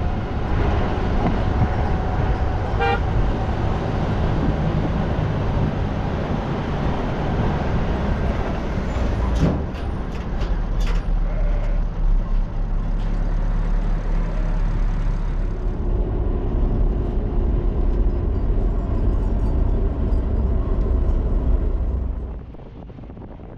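Motor vehicle on the road: a steady, loud engine and road rumble, with a few sharp clicks about ten seconds in. The rumble drops off sharply near the end.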